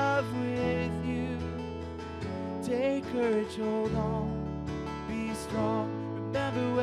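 Live worship song: acoustic guitar strummed with sustained keyboard chords, and a voice singing a short phrase about three seconds in.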